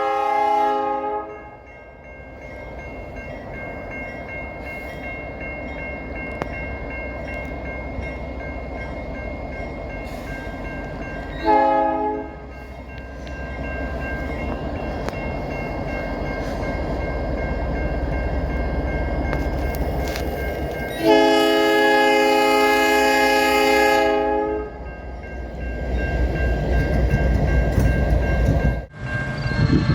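Nathan Airchime New Cast P3 locomotive horn sounding: a chord ending in the first second or two, a short blast about a third of the way in, then a longer blast of about three seconds past the middle. Under it runs the steady rumble of the freight train.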